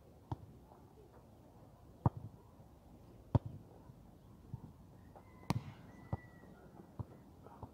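A football being kicked and bouncing: short, sharp thuds at uneven intervals, about one every second or two, the loudest about three and a half and five and a half seconds in.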